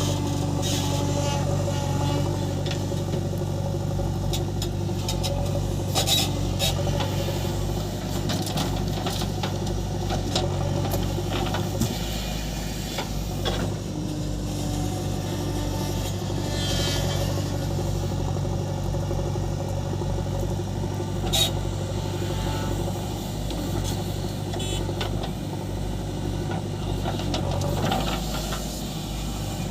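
Diesel engine of a JCB 3DX backhoe loader running steadily while it works, with a few sharp knocks scattered through.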